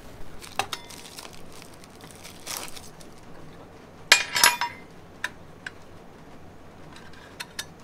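Small aluminium camping cookware knocking and clinking as it is handled. The pieces knock together now and then, with the loudest clatter about four seconds in, which rings briefly like light metal.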